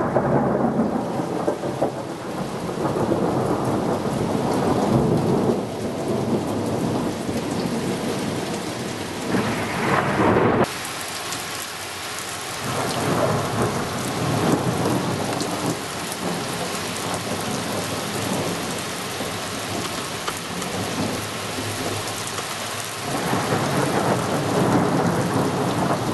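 Hail and rain pelting down: a dense rattle of small hailstones drumming on a car's metal roof, changing about ten seconds in to hail pattering onto moss and ground.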